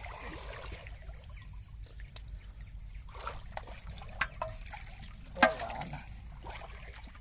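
Water trickling and dripping in muddy shallows. Around the middle come a few sharp knocks, the loudest about five and a half seconds in, fitting a caught fish being put into a metal pot.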